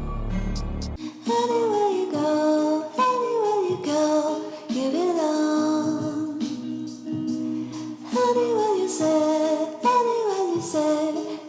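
A song with a sung melody, likely a woman's voice, in phrases of a second or two. A heavy deep bass sound fills the first second and cuts off suddenly.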